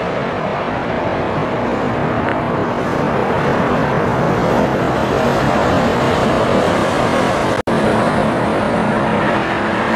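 Jet engines of a twin-engine widebody airliner, a Boeing 787, on final approach: a steady, even rumble that grows a little louder as the aircraft passes and comes down to land, with a momentary break about three-quarters of the way through.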